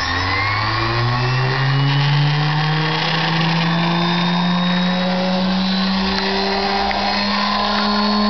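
Electric inertia starter of a Lycoming R-680 nine-cylinder radial aircraft engine winding up: a loud whine that climbs steeply at first, then keeps rising slowly in pitch as the starter's flywheel gathers speed.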